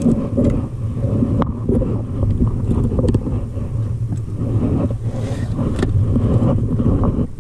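Steady wind rumble buffeting the microphone, with wind and choppy water around an inflatable boat.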